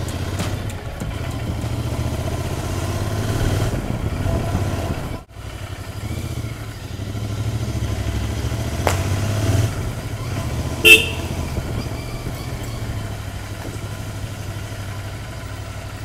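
Royal Enfield Interceptor 650's parallel-twin engine running steadily as the motorcycle is ridden, with one short horn beep about eleven seconds in.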